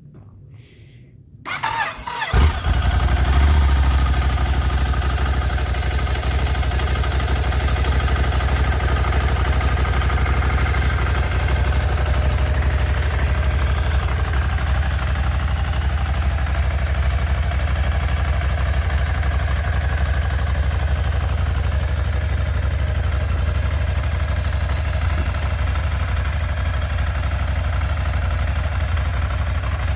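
Ducati Monster 797's air-cooled 803 cc L-twin on its stock exhaust, started cold after sitting a few days: the starter cranks briefly about a second and a half in, the engine catches, flares up for a moment, then settles into a steady idle.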